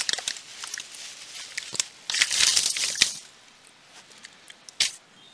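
Yellow padded paper mailer and bubble wrap crinkling and rustling as they are handled, with scattered sharp crackles. The loudest rustling comes about two seconds in, followed by a quieter stretch and one more crackle near the end.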